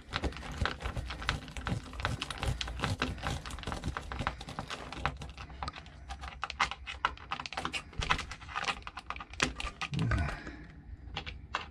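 Hand screwdriver clicking rapidly as it is turned, tightening the mounting screws of a newly installed Jabsco Par-Max fresh water pump.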